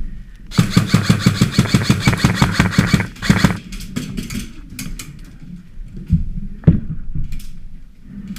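Airsoft gun firing on full auto: a rapid burst of about two and a half seconds, then a short second burst. Scattered clicks follow, then a single sharp knock, the loudest sound, about two-thirds of the way in.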